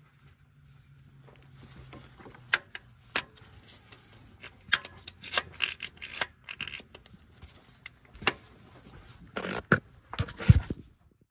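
Scattered metal clicks, clinks and scraping as engine parts and tools are handled, with a cluster of louder knocks near the end.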